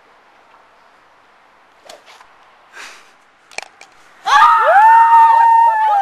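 A golf club strikes the ball with a sharp click about three and a half seconds in. Just under a second later loud, sustained screaming breaks out in celebration of the shot.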